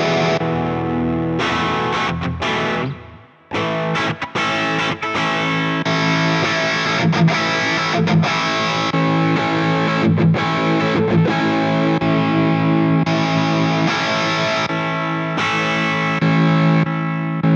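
Electric guitar played through a Hotone Ampero II Stage multi-effects processor, with sustained chords, partly distorted. The tone switches abruptly every second or two as presets are changed in quick succession. Each new preset takes effect at once, with no audible delay or stutter, and there is one brief dip in level about three seconds in.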